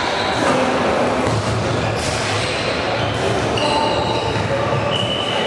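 Floorball play in a sports hall: a few sharp clicks of sticks on the plastic ball and short squeaks of shoes on the court floor, echoing in the hall over a steady murmur of the crowd.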